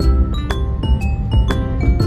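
Background music: bright, ringing struck notes over a steady bass beat, a sharp accent about every half second.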